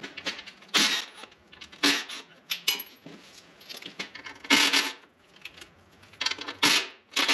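Metal hand tools clinking and clattering in short, irregular bursts, about six loud ones with small ticks between them, as a socket and wrench are handled.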